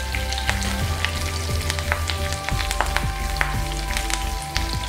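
Mustard seeds, curry leaves and chopped green chillies sizzling in hot oil in a non-stick pan, with many sharp crackles and pops as the mustard seeds splutter.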